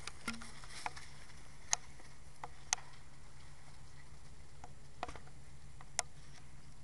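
Scattered, irregular sharp clicks and snaps, about eight in all, with the clearest ones near two, three and six seconds in, over a steady low hum.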